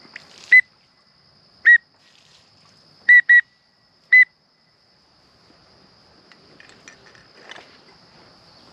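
A hand-blown teal whistle call giving five short peeps, each dropping a little in pitch: two single notes, a quick double, then one more. It is calling to draw in passing blue-winged teal.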